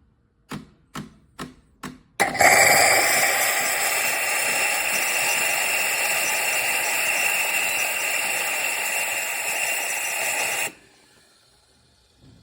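Four short clicks, then the Cecotec Power Instant-ccino semi-automatic espresso machine running with a steady mechanical noise for about eight seconds, which cuts off suddenly.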